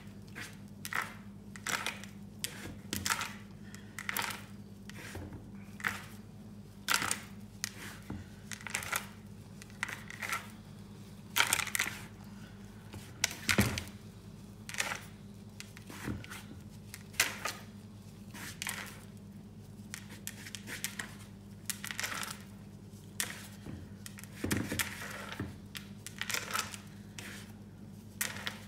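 Gloved hands rubbing butter into self-raising flour in a plastic bowl: a dry rustling, crinkling swish with each rub of the fingertips, in an irregular run of one or two strokes a second, over a steady low hum.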